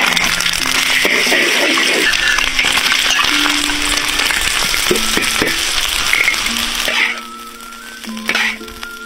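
Egg fried rice sizzling in hot oil as it is stir-fried, over background music. The sizzle stops about seven seconds in, leaving the music and a short knock near the end.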